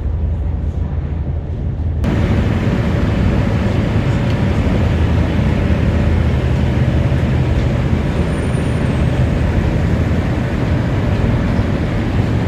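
Steady low drone of a running vehicle engine with road or hull noise. About two seconds in it changes abruptly to a fuller, brighter version of the same drone.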